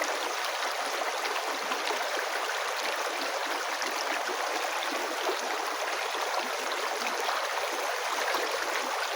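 River water flowing steadily, an even rushing wash flecked with many small splashes.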